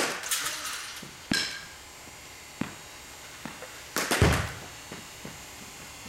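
A softball bat hitting a pitched softball right at the start, a sharp crack, followed by scattered knocks and thuds of balls and bats in the batting cages; the loudest, a heavy thud, comes about two-thirds of the way through.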